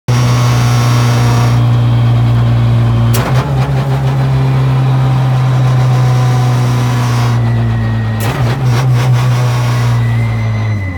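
Ford Fiesta WRC's turbocharged four-cylinder engine heard from inside the cabin, running at steady revs while driving on the road. Sharp clunks come about three seconds in and again around seven to eight seconds in.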